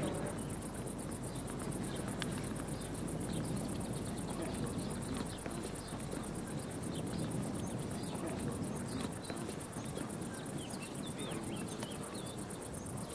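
Crickets chirping in a fast, even pulse, over a low background murmur of ambient noise.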